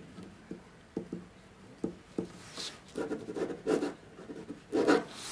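A few light clicks, then scratchy rubbing and rustling of small objects being handled, louder towards the end.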